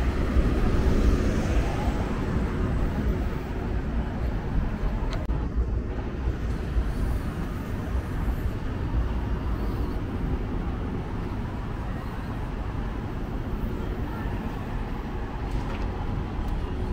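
City street traffic: a steady low rumble of road vehicles, a little louder in the first couple of seconds as one passes close.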